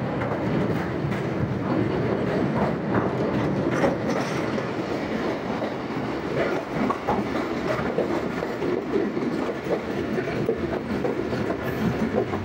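Passenger train running along the line: steel wheels rumbling steadily on the rails with an irregular clickety-clack of wheels over the track. Heard from the open doorway of the moving train.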